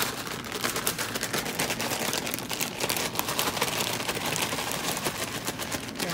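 A zip-top plastic bag holding a tilapia fillet and panko-Parmesan breadcrumb mix shaken hard by hand to coat the fish: steady crinkling of the plastic with rapid crackly ticks of crumbs rattling inside.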